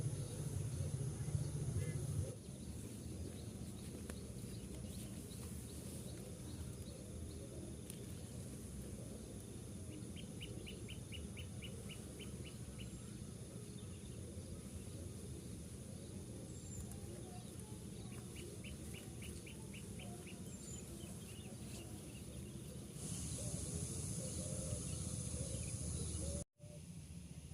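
Quiet outdoor ambience with small birds chirping. Twice, a short rapid run of high chirps comes at about four a second over a steady low background noise.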